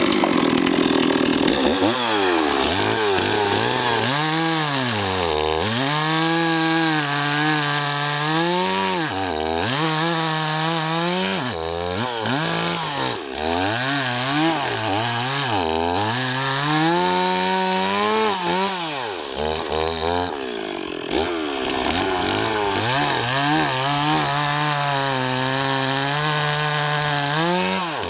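Stock-muffler Stihl MS 260 two-stroke chainsaw at full throttle, cutting into the end grain of an upright log. Its engine note dips again and again as the chain bites into the wood and climbs back as it clears, then holds steadier over the last several seconds.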